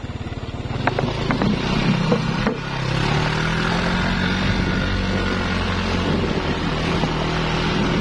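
Motorcycle engine running, its pitch rising about three seconds in and then holding steady, with a few sharp knocks in the first two and a half seconds.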